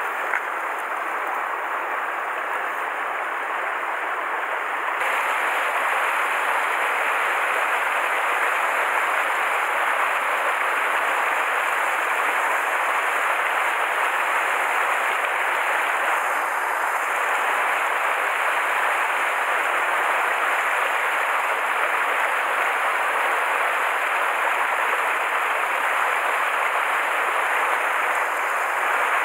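Mountain stream rushing over boulders and a small cascade, a steady rushing that grows a little louder about five seconds in.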